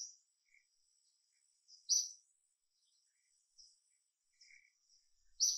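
Birds chirping: short high chirps, the three loudest about two seconds apart, with fainter ones in between, over a thin steady high tone.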